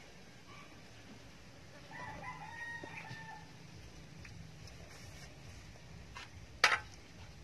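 A rooster crows once, about two seconds in, a single call lasting about a second and a half. Near the end comes a single sharp clack as the metal spoon strikes the grill pan, with a few lighter clicks around it.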